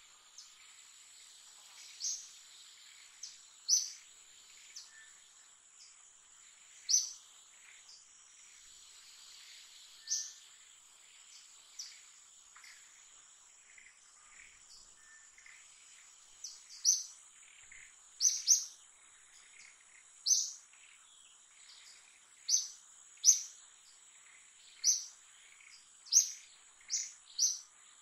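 Forest ambience: a steady high-pitched insect drone, with short, sharp high chirps every one to two seconds that come faster in the second half.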